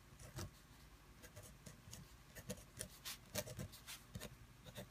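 Pen writing letters on a sheet of paper: faint, short scratching strokes, several a second at an uneven pace.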